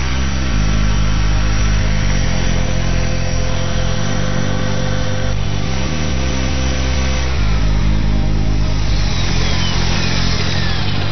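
Electric RC helicopter (Align T-Rex 450) running with its rotors turning, then a whine that falls in pitch over the last few seconds as the motor and rotors spool down after landing.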